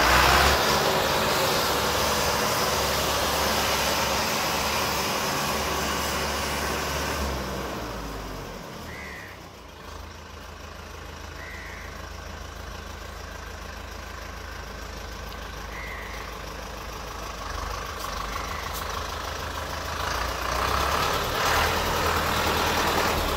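YTO EF 804 tractor's diesel engine running with the throttle held at about 2000 rpm while the tractor drives in reverse first high gear; the engine sound fades as the tractor moves away, is faintest about ten seconds in, and grows louder again as it comes back close.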